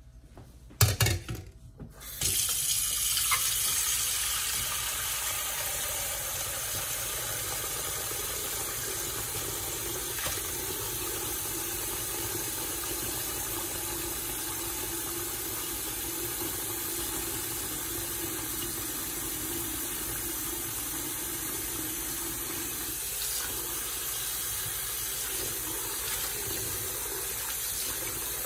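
Kitchen tap running steadily into a metal bowl of coriander leaves in a stainless steel sink, starting about two seconds in after a few sharp knocks. Near the end, hands swish the leaves through the water.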